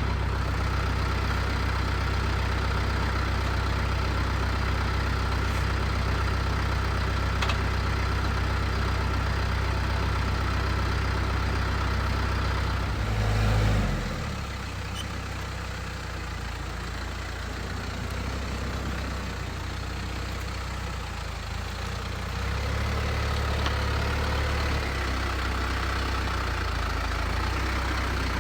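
Tractor engine running steadily at idle. About 13 seconds in it swells briefly then settles lower, and it picks up again about 22 seconds in.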